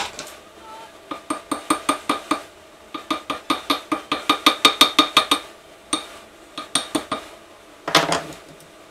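Rapid runs of short, evenly spaced metallic clicks, about five a second, from a hand tool being worked against the crankshaft end of a Suzuki DR-Z400 engine. A single heavier metal clank comes near the end.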